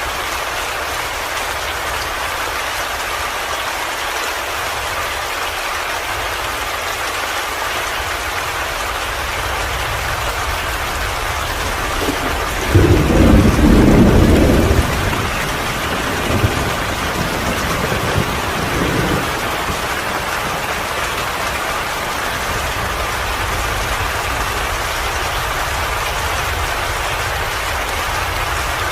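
Steady rain. About halfway through, a loud low rumble of thunder rolls for about two seconds, followed by two fainter rumbles.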